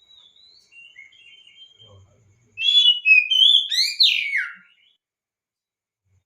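Oriental magpie-robin (kacer) singing: soft whistled notes, then about two and a half seconds in a loud, rapid phrase of falling whistles lasting about two seconds.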